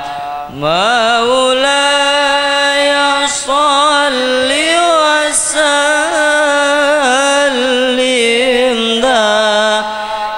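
A single voice chanting devotional verse in a melismatic style, holding long notes and sliding between pitches, with a rising glide at the start.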